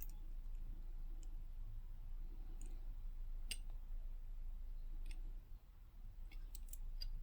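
A few faint, scattered clicks and taps of small costume jewelry being handled, a cluster of them near the end, over a steady low hum.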